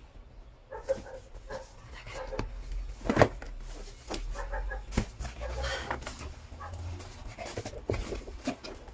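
Cardboard gift box being handled and its lid opened: a run of scrapes, taps and knocks, the sharpest about three seconds in.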